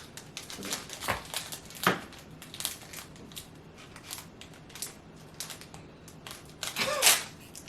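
Plastic snack wrapper crinkling and crackling in the hands, with crunching of a chocolate hazelnut snack. Irregular sharp crackles, a few louder about one and two seconds in.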